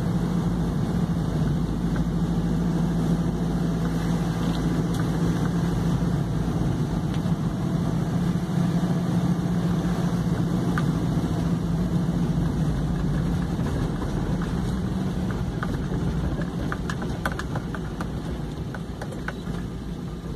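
Truck engine running steadily at low speed, heard from inside the cab. About fifteen seconds in, the engine note drops and quietens, and a scatter of light clicks and rattles follows near the end.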